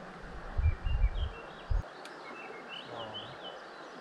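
Small birds chirping in short, quick phrases, twice, over a steady outdoor hiss, with a few low thumps in the first two seconds.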